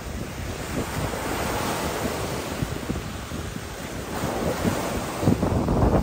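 Small waves breaking and washing onto a beach, with wind buffeting the microphone, the gusts growing stronger near the end.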